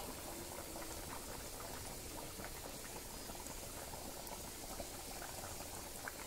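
Curry simmering in an iron wok over a wood fire: a faint, steady bubbling of the boiling liquid.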